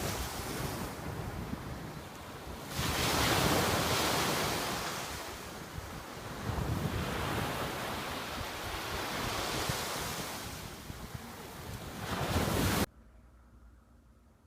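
Ocean surf with wind buffeting the microphone, the waves swelling and easing every few seconds; the sound cuts off abruptly near the end.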